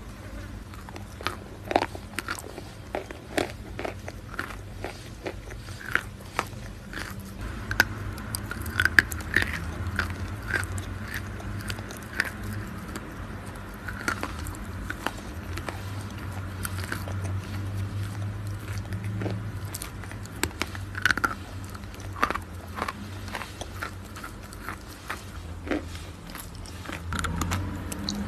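A person biting and chewing blocks of white chalk. Frequent, irregular sharp cracks and crunches come as the chalk snaps and breaks up in the mouth.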